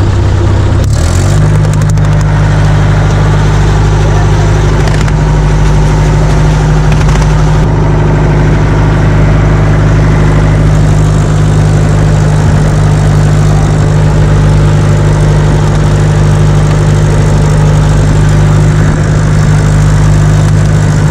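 Fishing boat's engine running loud and steady; about a second in it speeds up to a higher pitch and holds there.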